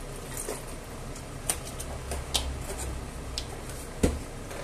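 A few light clicks and taps as a broth carton and other kitchen things are handled at the hob, with one louder knock about four seconds in as something is set down.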